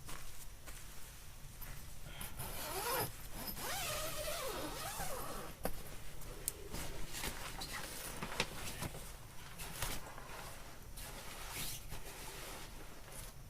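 Rustling and rubbing of camping gear being handled, with zipper-like scrapes, a few short squeaks about three to five seconds in, and occasional sharp clicks.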